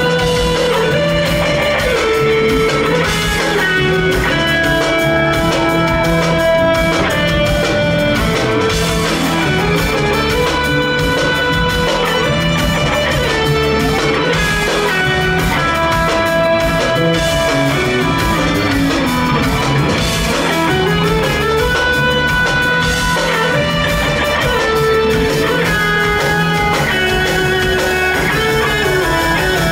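Live band playing an instrumental piece: a gliding lead guitar melody over drum kit, bass and keyboards, heard from the audience in a concert hall.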